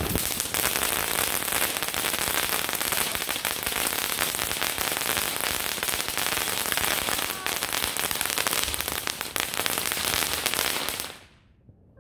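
Ground fountain fireworks spraying sparks with a dense crackling hiss, fading out quickly about a second before the end.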